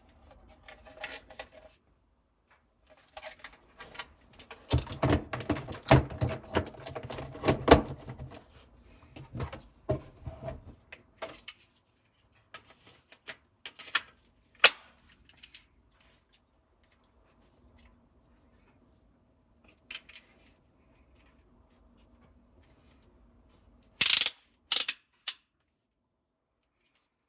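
Handling and unpacking noises from a cordless drill, its packaging and its case. There is irregular clattering and rustling, loudest a few seconds in, then three sharp clicks near the end.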